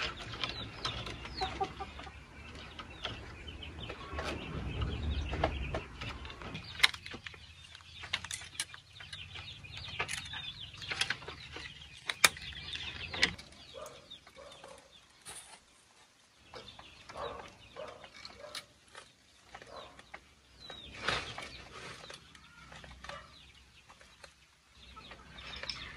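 Rustling and sharp clicks of plastic mesh netting and thin tie wire being handled as the net is fastened over a bamboo wall, with chickens clucking now and then.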